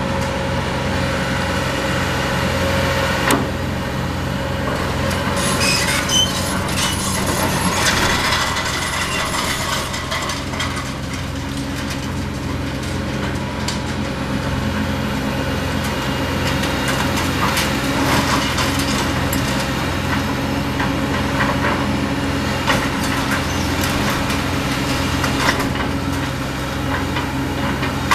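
Diesel engine of a 450C LC excavator running steadily during demolition, with occasional sharp knocks and crunches from debris being broken and dropped.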